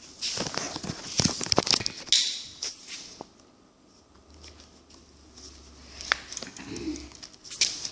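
Handling noises from fishing line and rod being worked: a flurry of crinkling and scraping with sharp clicks over the first two seconds, then quieter with a couple of single clicks and a faint low hum.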